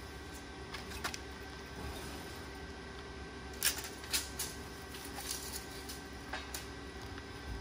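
Steady hum of a metal-shop machine running, the tube-cutting disc machine, with a few sharp clicks and clinks scattered over it, the loudest two about three and a half and four seconds in.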